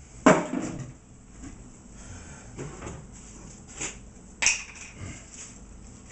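Sharp knocks and clunks of kitchen things being handled and moved about while searching for an ingredient, the loudest just after the start and another about four and a half seconds in, with quieter rummaging between.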